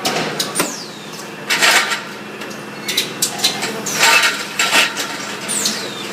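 Automatic resistance spot-welding machine working on galvanized fence tubes: irregular metallic clanks and knocks with short hissing bursts as it presses in and welds hooks and caps, over a steady machine hum. Two brief high whines fall in pitch, one near the start and one near the end.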